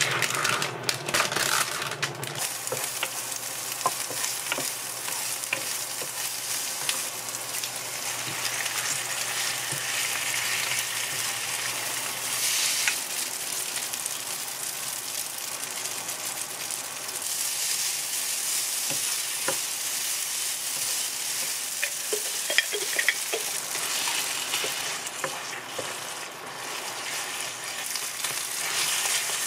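Spaghetti, salami slices and onion sizzling in a ceramic frying pan, stirred with a wooden spatula that scrapes and knocks against the pan now and then. Near the start, a plastic salami packet crackles as it is pulled open.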